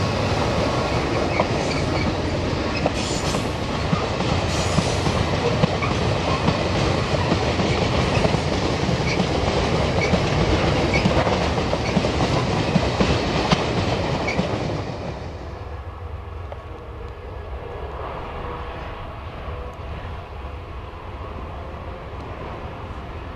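Freight train rolling past close by, its wagons' wheels clattering over the rail joints with many rapid clicks. About 15 seconds in, this cuts suddenly to the quieter, steady drone of a diesel locomotive running farther off.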